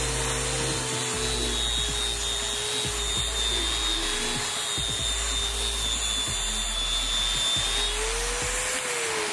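A Bosch GWS 060 corded angle grinder, fitted with a hook-and-loop sanding pad, runs steadily while sanding plywood. It has a high whine, and its pitch rises briefly near the end.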